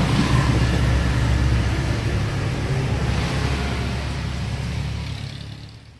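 Engine rumble with wind and road noise heard from inside an open-sided vehicle on the move, fading out over the last two seconds.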